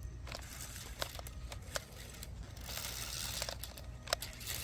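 Rustling and crunching of dry vegetation with scattered light clicks, as a small tracked RC stunt car crawls through the brush.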